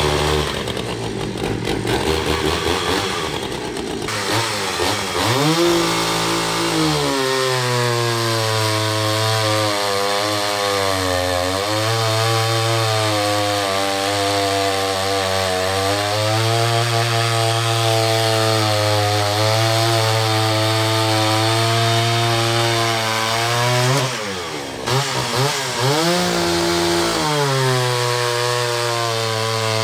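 Pioneer P41 66 cc two-stroke chainsaw, stock muffler, running at full throttle while cutting through a log, its engine pitch wavering as the chain loads in the wood. Near the end the engine drops off briefly, revs back up and settles into another cut.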